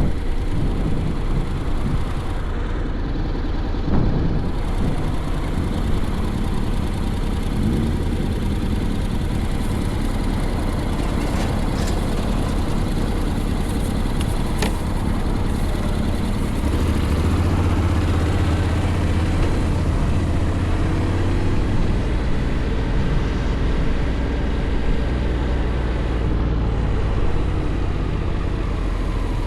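Honda X-ADV's 745 cc parallel-twin engine running under way, with a steady low rumble and wind noise; its pitch rises for a few seconds around the middle as it picks up speed.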